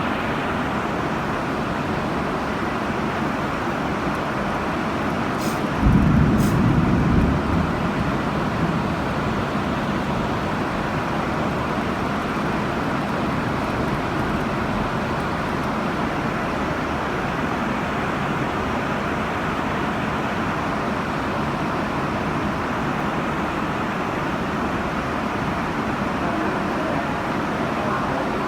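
Steady noise of vehicle traffic on a rain-soaked road, with a louder low rumble about six seconds in that lasts about a second and a half.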